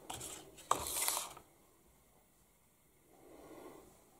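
Packaging being handled on a table: sharp clicks and a brief scraping rustle in the first second and a half as the small black gift box and cardboard box are pushed aside, then a softer, duller sound about three seconds in.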